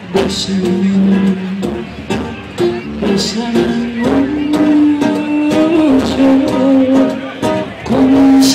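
Live tango song: a woman singing long held notes that step upward, over a rhythm of plucked guitars.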